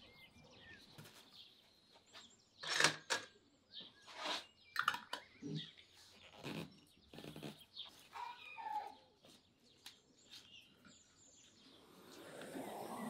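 Irregular knocks and clatters of cooking utensils and dishes being handled, with a steadier noise building near the end.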